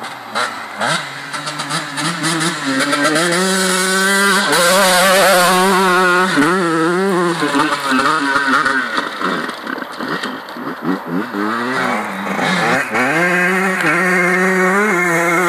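Honda CR125 two-stroke motocross bike engine revving hard, its pitch climbing, dropping and wavering over and over as the throttle is worked and gears change. It grows louder from about three seconds in as the bike approaches.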